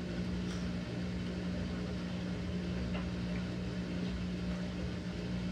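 Maytag washing machine in its spin cycle: the drum spins at a steady speed with an even, unchanging motor hum.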